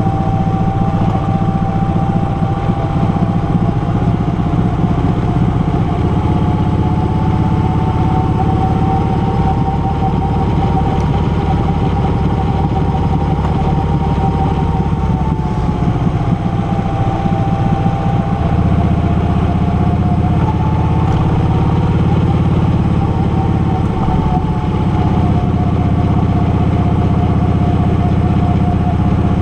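Motorcycle engine running steadily while riding at road speed, a low rumble under a thin whine that slowly rises and falls in pitch.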